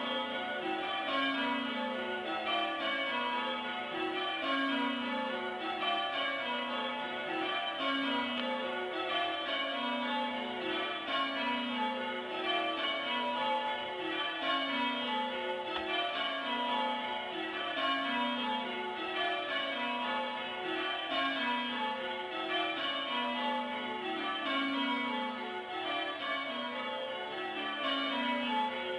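Church tower bells being change-rung, heard from below the ringing gallery by the tower stairwell: steady rows of strikes, each row falling to the low tenor note and following the last about every two seconds.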